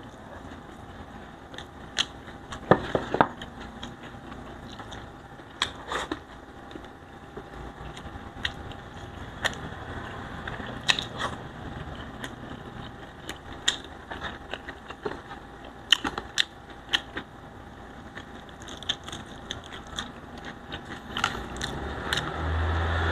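Close-up eating sounds: scattered sharp mouth clicks and lip smacks as rice and fried tilapia are chewed. Near the end, a louder, longer crackling as the crisp fried fish is pulled apart by hand.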